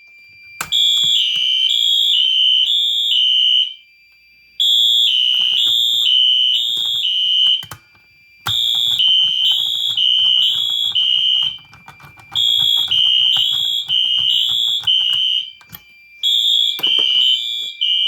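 Two Wheelock electronic horn/strobes, an AS-24MCW and an NS2475W, sounding the temporal code-3 evacuation pattern. The two horns run out of step, so their high-pitched blasts merge into bursts of about three seconds with roughly a second's pause between, five times over. A faint steady high whine runs underneath.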